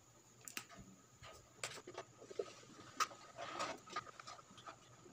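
Faint scattered clicks and rustles of hands and pliers handling thin speaker wires and twisting them together.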